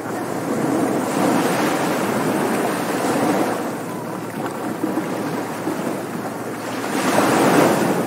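Ocean surf washing onto a beach. The noise of the waves swells and ebbs, with one wave surging over the first few seconds and another building and breaking near the end.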